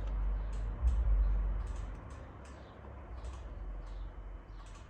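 Light clicks and taps on a handheld scan tool, a few a second and unevenly spaced, over a low rumble that is loudest in the first two seconds.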